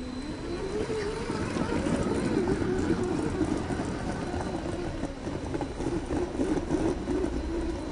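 Electric motor and geared drivetrain of an Absima CR3.4 Sherpa RC rock crawler whining under load as it climbs rock, the pitch wavering up and down as the throttle is worked.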